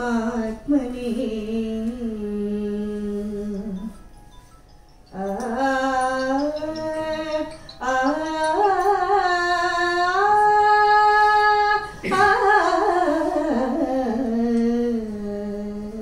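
A woman singing a Kannada mukthaka (short verse) solo into a microphone, in long held notes with slow glides between pitches. She breaks off about four seconds in and resumes about a second later.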